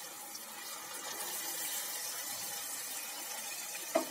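Water poured from a plastic jug into a kadai of fried masala: a steady pour, adding the water for the curry's gravy. A brief louder sound comes near the end.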